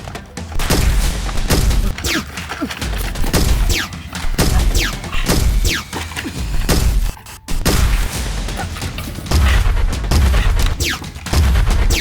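Bursts of rapid gunfire sound effects, cut in to stand for a Nerf gun battle, with several falling whistling ricochets. There is a brief break about seven seconds in.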